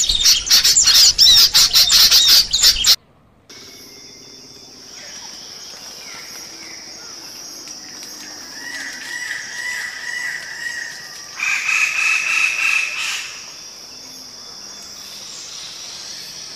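A loud, dense chorus of birds chirping breaks off abruptly about three seconds in. After a short gap comes a steady high insect hum, with bird calls over it in the middle: a warbling call and then a louder burst of calling.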